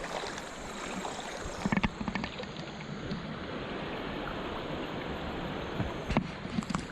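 Steady rush of river water. Brief sharp knocks or splashes cut through it about two seconds in and again near the end.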